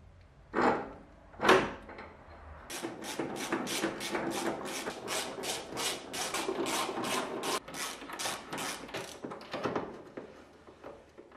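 Two metal knocks, then a ratchet wrench clicking in quick, even strokes, about four a second for some six seconds, as it runs a mounting bolt of the front lower control arm in. A couple more knocks near the end.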